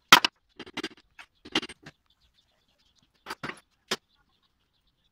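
Small restored metal portable vise being picked up and handled in a cloth on a metal workbench: a string of short clinks and knocks. The loudest comes right at the start, more follow over the next two seconds, and another few come a little after three seconds.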